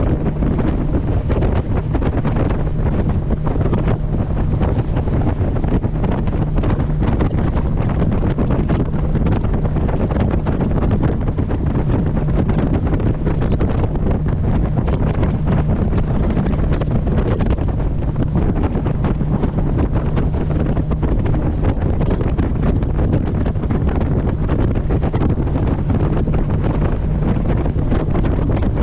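Wind buffeting the microphone on a moving boat, over the steady low drone of the boat's engine and the rush of water along the hull.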